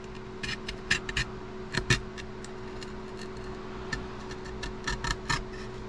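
Light ticks and clicks of a small hand tool picking and scraping old display adhesive off a phone's frame, scattered in two clusters, over a steady low electrical hum.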